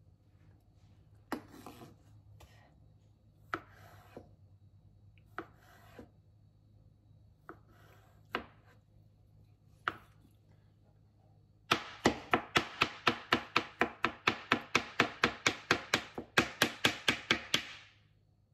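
Kitchen knife cutting peeled aloe vera gel on a plastic cutting board. First come about six separate slicing cuts a second or two apart, each ending in a knock of the blade on the board. Then, after about twelve seconds, comes rapid chopping at about five strokes a second for some six seconds as the gel is diced.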